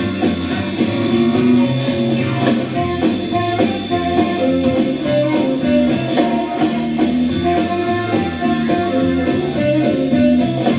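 Live band playing an instrumental jam, with guitar prominent.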